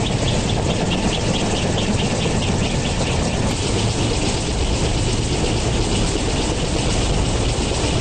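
CH-53E Super Stallion helicopter running on deck with rotors turning, heard at close range: a loud, steady rush of turbine and rotor noise. A faint, rapid pulsing sits high over it and fades out about three seconds in.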